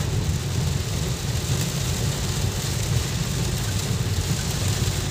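Torrential rain pelting a moving car's roof and windscreen, heard from inside the cabin, over a steady low rumble of the car on the wet road.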